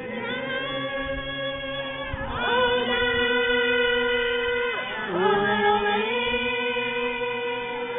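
A choir singing long held notes, moving to a new chord about two seconds in and again around five seconds in.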